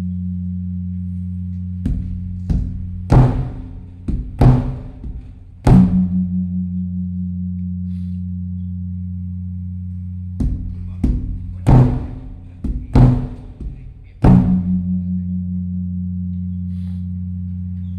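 Large Thai temple evening drum (klong laeng) beaten as the signal for the Buddhist holy-day eve. It comes in two clusters of strokes in an uneven rhythm. Each cluster ends in a heavy stroke whose deep ring hangs on for about four seconds.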